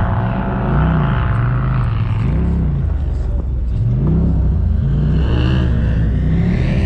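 Polaris RZR side-by-side engine revving up and down again and again, its pitch climbing and dropping every second or two under hard driving on sand.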